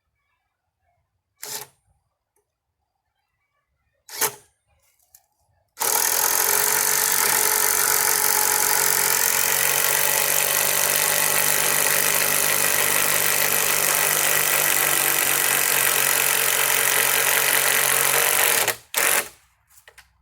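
Power drill driving a screw into lumber: two brief trigger pulls, then about thirteen seconds of steady running, stopping a second or so before a final short burst.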